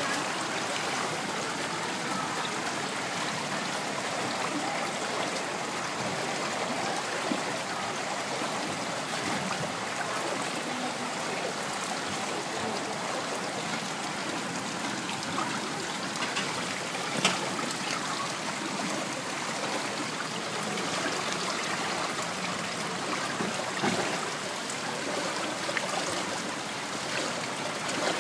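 Floodwater sloshing and splashing steadily as people wade through it and push a cart, with a few sharp knocks standing out about a quarter, two thirds and five sixths of the way through.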